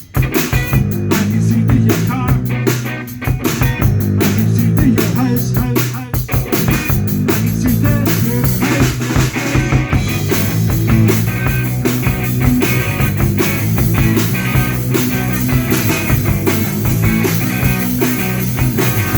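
Live rock band playing: a drum kit keeping a steady beat with snare and rimshot hits under electric guitar and bass, after a brief drop right at the start.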